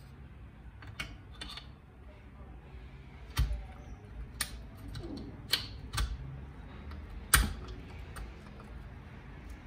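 A string of sharp, short metal clicks and taps as a piston and its gudgeon pin are handled and fitted onto the connecting rod of a Honda Dio two-stroke scooter engine, the loudest tap about three quarters of the way through.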